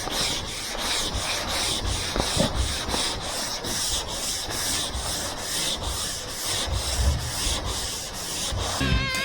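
Hand sanding body filler on a car's roof panel with coarse sandpaper, in rhythmic back-and-forth strokes about three a second. An electric guitar music track starts near the end.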